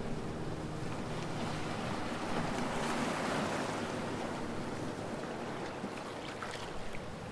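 Water rushing past a sailboat under way, with wind buffeting the microphone; the wash swells about three seconds in.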